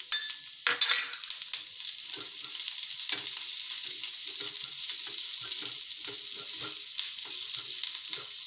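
Diced vegetables sizzling in hot oil in a frying pan, stirred with a wooden spatula that scrapes across the pan in quick, repeated strokes. A couple of louder knocks and a surge of hiss come in the first second.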